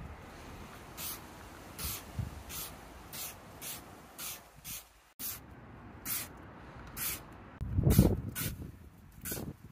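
Hand trigger spray bottle squirting detailing product onto a car's paintwork in a quick series of short sprays, roughly one every half second to second. A louder dull thump comes about eight seconds in.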